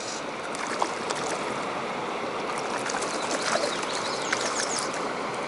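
Steady rush of a flowing creek, with brief splashes from a hooked brown trout thrashing at the surface.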